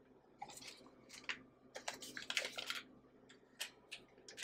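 Butter wrapper crinkling as a silicone spatula scrapes soft butter off it into a stand mixer's steel bowl: irregular soft rustles and small scrapes.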